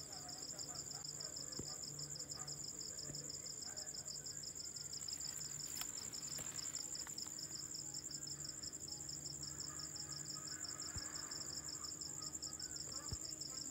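Insects trilling steadily: two high, rapidly pulsing songs, one pitched a little above the other, continuous throughout.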